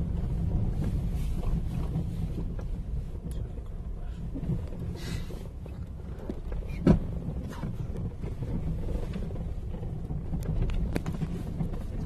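Car driving slowly over a potholed, muddy road, heard inside the cabin: a steady low rumble of engine and tyres with scattered suspension knocks, the loudest a sharp thump about seven seconds in as a wheel drops into a pothole.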